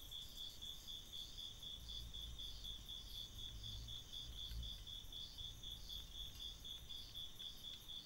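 A faint, steady chorus of night insects calling: an even, fast pulsing of about five chirps a second, with a second, slower pulsing call a little higher in pitch.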